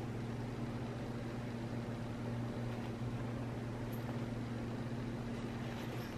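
Steady low hum over a faint even hiss: room tone.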